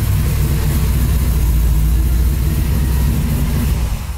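Chevrolet pickup's V8 engine idling steadily, its sound mostly low-pitched and even, with no revving.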